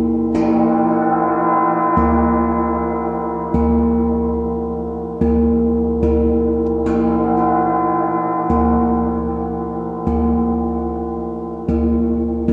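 Slow music of deep struck tones, one stroke about every second and a half. Each stroke has a low boom and a long ringing hum that carries on into the next.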